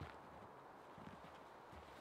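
Three faint footfalls of boots on leaf-covered forest floor, soft low thuds spaced roughly a second apart.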